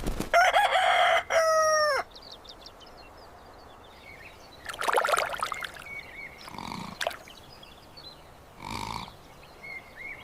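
Rooster crowing. The long crow ends about two seconds in on a falling note, and a few shorter, quieter calls follow.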